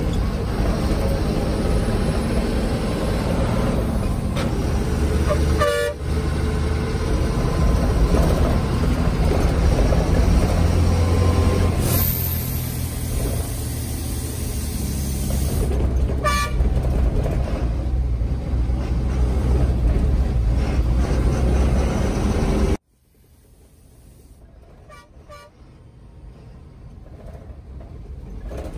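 Bus engine and road rumble heard from inside the cabin, with a vehicle horn honked briefly about six seconds in and again about sixteen seconds in. About three-quarters of the way through, the sound cuts off suddenly to a much quieter hum that slowly grows louder, with faint distant honks.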